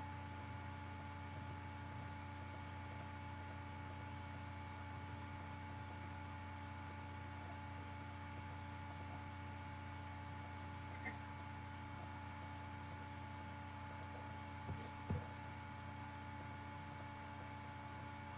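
A steady, faint hum with several fixed tones over it, broken only by a few faint clicks, one a little past the middle and two more later.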